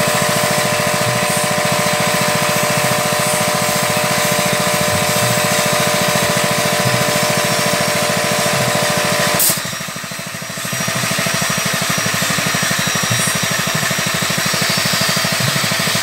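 A motor-driven machine running steadily, with a constant multi-tone whine over a dense mechanical noise. About nine and a half seconds in there is a click, the whine stops and the level drops for about a second before the running noise comes back without the whine.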